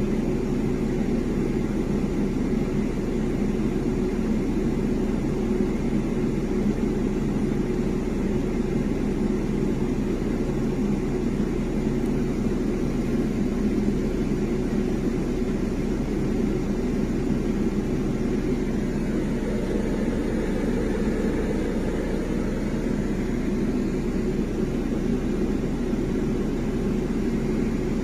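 Air-conditioning equipment running: a steady low hum with a rushing, fan-like noise and a few constant tones.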